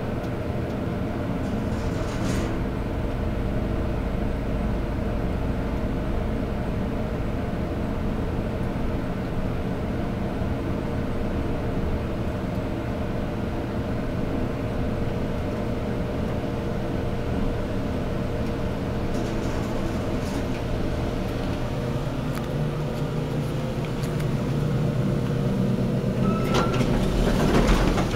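US Elevator traction elevator car travelling upward: a steady hum and rumble with several steady tones. About three-quarters of the way through the low hum changes pitch, and near the end there is a short high tone and a louder rushing noise.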